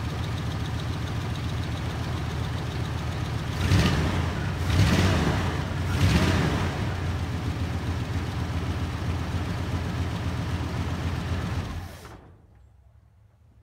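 1983 Ford F-150's carbureted engine idling, with three quick blips of the throttle about four to six seconds in, then switched off near the end. The carburetor has just been cleaned and reassembled.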